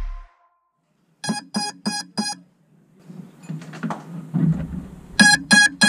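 Electronic beeping from a crashed FPV quadcopter: four short, identical beeps about a third of a second apart, then a pause with faint background noise, then three more beeps near the end.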